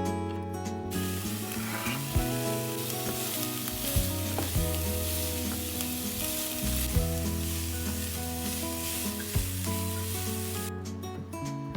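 Food sizzling in a hot pan, a dense hiss that starts about a second in and stops shortly before the end, over quiet background music.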